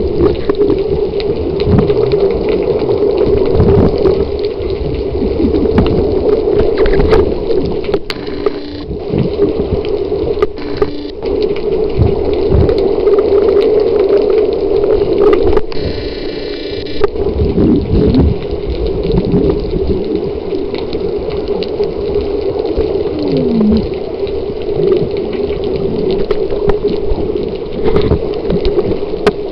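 Muffled underwater water noise picked up by a submerged camera: water sloshing and bubbling around the housing, over a steady low hum.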